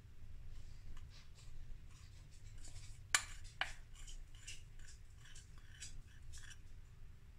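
Faint clicks and light knocks of a plastic measuring jug being handled while lemon icing is poured over a cake, with two sharper clicks about half a second apart a little after three seconds in, over a low steady hum.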